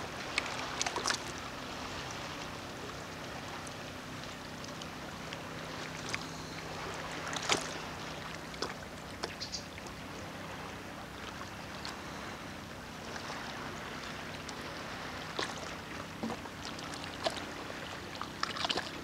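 Calm sea water lapping at the shore, with scattered small splashes and clicks, the loudest about seven seconds in and more near the end. A steady low hum runs underneath.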